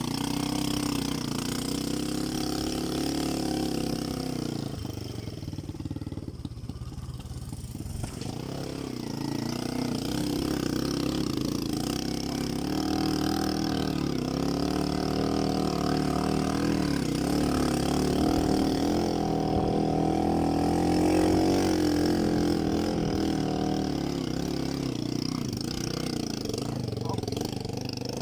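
Dirt bike engine running under changing throttle, its pitch rising and falling as the rider works through the trail. It drops lower and quieter for a few seconds near the start, then picks up again.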